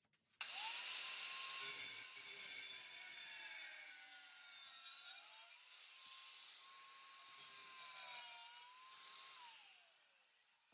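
A power cutting tool spins up and cuts through sheet steel, making a loud hiss with a whine that sags and recovers under load. Near the end it spins down and fades.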